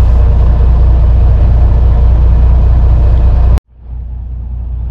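Steady low drone of the fishing boat's idling engine. It stops suddenly about three and a half seconds in, then fades back up.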